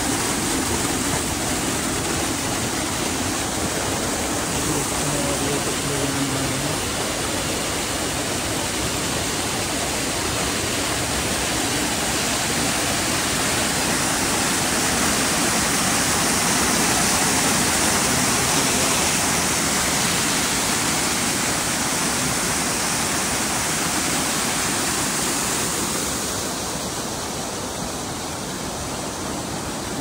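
Waterfall: water pouring over a rock ledge and splashing into the pool below, a steady rushing noise. It grows louder around the middle and eases a little near the end.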